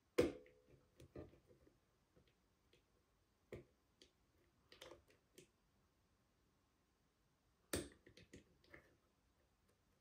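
Irregular sharp metallic clicks and ticks of a pick lifting the levers inside a Morgan 5-lever sash mortice lock. Two louder clicks with a brief ring, one right at the start and one about three-quarters through, with fainter ticks between.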